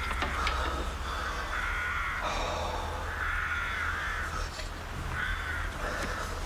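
Crows cawing, a series of short harsh caws one after another.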